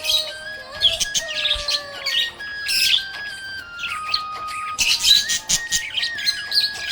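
Budgerigars chirping and warbling in quick, busy bursts over a simple tune played in steady stepped notes.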